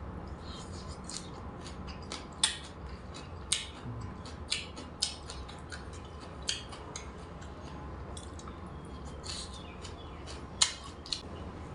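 Close-up eating sounds: irregular crisp crunches and mouth clicks of chewing, over a steady low hum.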